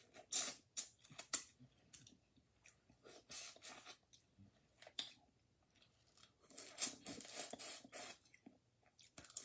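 Boiled crawfish being cracked, peeled and eaten: irregular short crackles and snaps of shell with chewing, coming in clusters, the longest run near the end.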